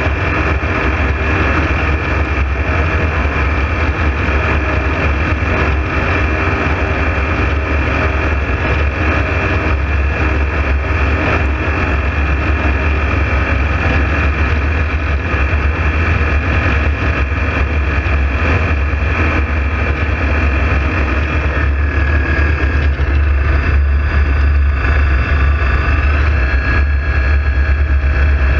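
Engine of a motorized hang glider running steadily in flight, a continuous loud drone; its pitch shifts slightly in the last few seconds.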